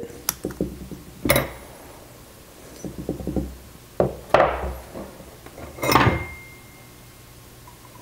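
Steel sprockets, a roll of tape and scissors being cut with, set down and handled on a wooden workbench: scattered knocks and clinks, with three louder knocks, the last one ringing briefly like struck metal.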